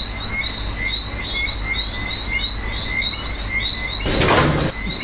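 Bush ambience at night: a chirp repeated over and over, a thin steady insect trill and a low rumble, with the contest's short mystery sound, a loud noisy burst lasting under a second, dropped in about four seconds in.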